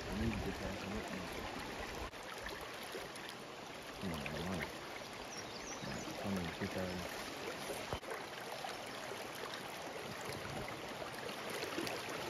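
River current rushing steadily, an even wash of flowing water.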